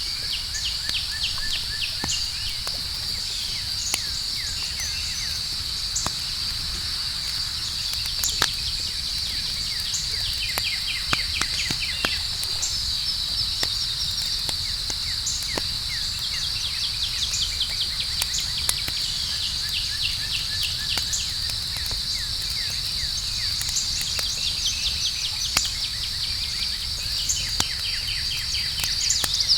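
Campfire crackling with scattered sharp pops over a steady high-pitched night chorus of crickets, with repeated runs of quick chirps.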